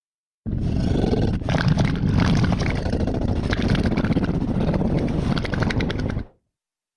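Staurikosaurus dinosaur roar sound effect: one long, rattling roar that starts abruptly about half a second in, holds for about six seconds and cuts off sharply.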